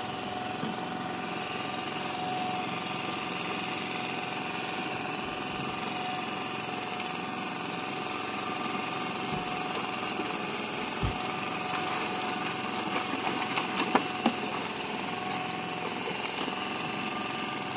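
Small boat engine running steadily at an even speed, a constant hum with a steady tone. A few light clicks come in about two-thirds of the way through.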